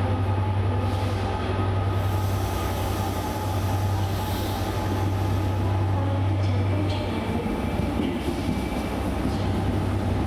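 Arriva Trains Wales diesel train moving slowly past the platform, its engine giving a steady low drone.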